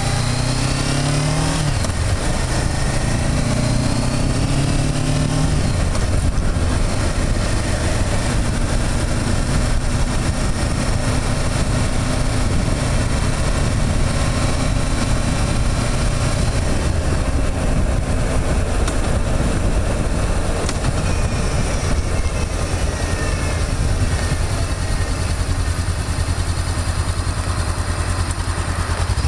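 Motorcycle engine running on the road, heard from a camera on the handlebar mirror: its pitch climbs twice in the first few seconds as it accelerates through the gears, then holds steady under a constant rush of wind.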